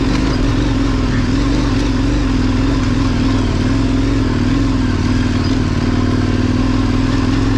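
KTM 1090 Adventure's V-twin engine running steadily at a moderate pace on the trail, its pitch wavering slightly with the throttle, over a continuous rush of noise.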